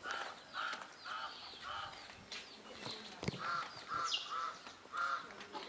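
Bird calls: a run of short, repeated calls, several a second, with a few higher chirps and a single sharp knock about three seconds in.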